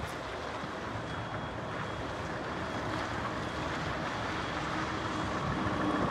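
Scania R580 hook-lift truck's V8 diesel engine running as the truck drives across the yard, growing gradually louder as it comes closer.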